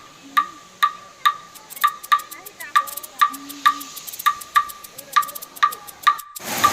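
Background music with a light ticking beat, about two ticks a second, each tick with a short ringing tone. Near the end a steady rush of waterfall noise comes in under the beat.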